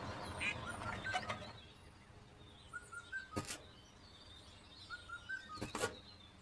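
A bird chirping in two short phrases of three or four quick rising notes, each phrase followed by a sharp click.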